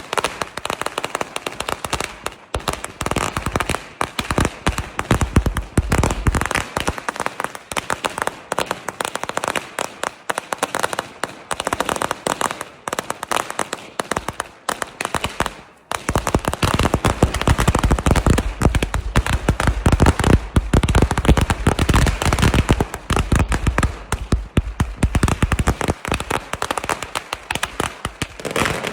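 Firecrackers going off in a rapid, dense string of pops and crackles. It drops off sharply just before the middle, then starts again louder and heavier.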